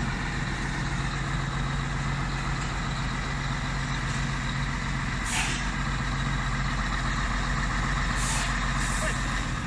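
Scania 113M 320 truck's straight-six diesel idling steadily close by, with three short hisses of compressed air from a truck's air system, one about five seconds in and two near the end.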